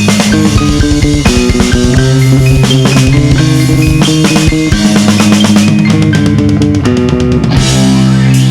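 Progressive rock music: a band with guitar, bass and drum kit playing, held notes changing every second or so over a steady drum beat.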